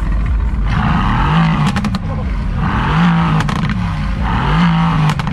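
Mercedes-AMG GT's V8 revved three times while standing still, each rev climbing and falling back, with sharp pops from the exhaust as each rev drops.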